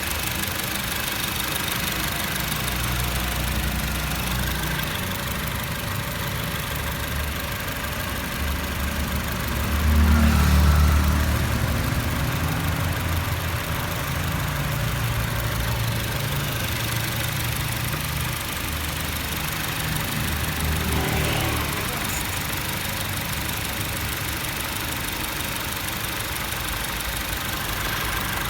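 Honda City ZX GXi's four-cylinder petrol engine idling steadily while a water-and-vinegar mix is drawn into its air intake to decarbonize it; the low rumble swells louder for a moment about ten seconds in.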